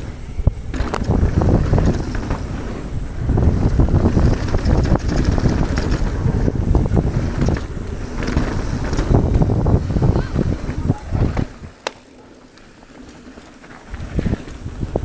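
Wind buffeting the action camera's microphone over a mountain bike rolling fast down a dirt trail, with the tyres and bike clattering over bumps. The noise drops away for about two seconds near the end, with one sharp click in that quieter stretch.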